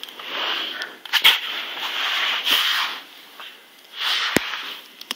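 Cat sniffing and rubbing her face in catnip on a carpet: a rustling hiss in three stretches, with two sharp clicks, one about a second in and one near the end.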